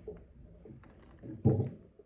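Faint rustling and light clicks of a rag wiping and handling a small metal milling vise, with one short, louder low thump about one and a half seconds in.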